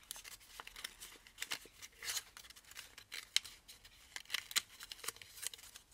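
Creased origami paper rustling and crinkling as hands open out a folded module: irregular short crackles, the sharpest about two and three and a half seconds in.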